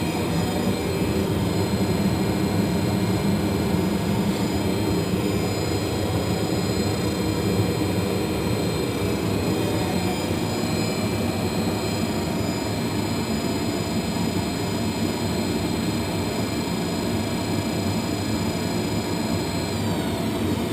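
Monarch 10EE lathe running steadily in its low speed range: a constant mechanical hum with several steady high-pitched whine tones over it. Near the end the whine tones shift in pitch.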